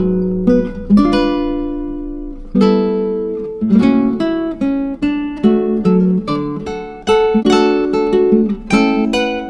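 Background music on acoustic guitar: plucked notes and chords, each struck sharply and left to ring and fade.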